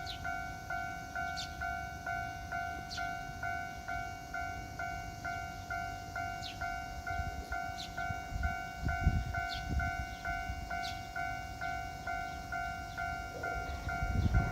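A Japanese railroad crossing's electronic warning bell ringing in an even, rapid ding-ding, about two to three strikes a second. A train's low rumble comes in from about nine seconds in and swells near the end as it reaches the crossing.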